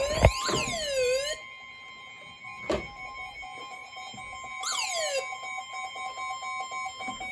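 Electronic alert tones: a steady two-tone signal with swooping, siren-like glides near the start and again about five seconds in, and two sharp clicks.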